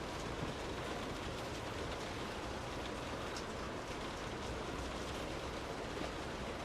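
Steady rain falling on a car's roof and windows, heard from inside the car, with a dense even patter and scattered faint drop ticks.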